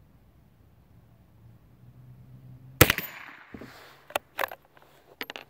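A CZ ZKM 468 single-shot .22 Long Rifle rifle fires one shot about three seconds in, a single sharp crack with a short echoing tail. A few smaller metallic clicks follow as the bolt is worked.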